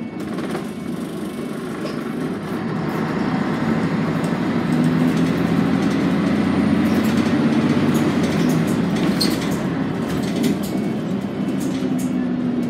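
Scania N113CRB city bus's rear-mounted diesel engine heard from inside the passenger saloon as the bus pulls along. The engine note builds over the first few seconds, holds strong through the middle and eases a little near the end.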